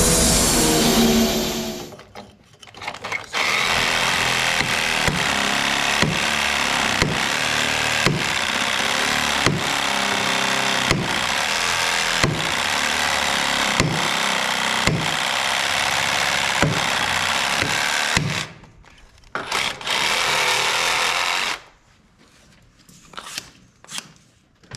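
A handheld power saw cutting into a thick oak post, running steadily with a faint pulse about once a second. It stops after about fifteen seconds and runs again briefly.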